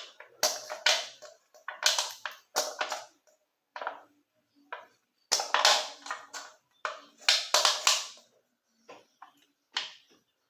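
Aluminium beer can being worked with a tool to make a small hole in its middle: a series of short, sharp crunching and scraping strokes at irregular intervals.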